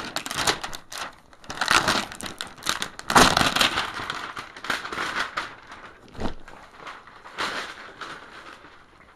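Crinkling and rustling of packaging being handled, in irregular bursts that thin out over the last couple of seconds.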